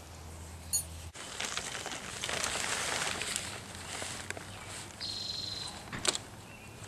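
Nylon tent fabric rustling for a few seconds as the collapsed tent is lifted and pulled, followed by a sharp click near the end. A high steady note sounds for about a second before the click.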